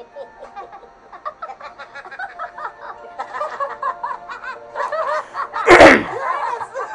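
Laughter that builds up over several seconds, a quick run of ha-ha sounds, over faint background music, with one loud, sudden burst of noise near the end.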